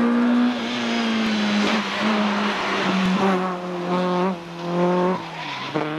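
Small hatchback rally car's engine at high revs under hard driving. The engine note holds steady for stretches and drops suddenly several times as the driver lifts off and changes gear.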